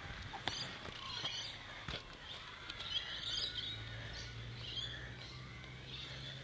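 Faint bird chirps at scattered moments over quiet outdoor background, with a few light knocks from the phone being handled. A low steady hum comes in about four seconds in.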